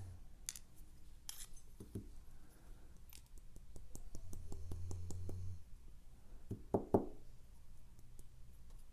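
Small metal lock parts clicking and clinking as the sliders are worked out of a disassembled Evva ICS lock plug. There is a quick run of light clicks midway and a couple of louder clicks near the end.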